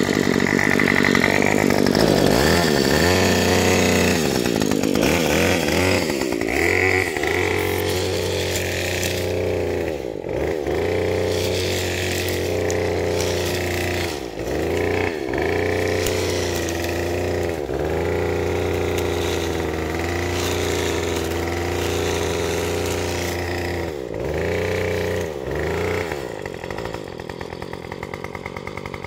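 Gas string trimmer's small engine running. The revs dip and climb back several times as the throttle is let off and squeezed again. It gets quieter near the end.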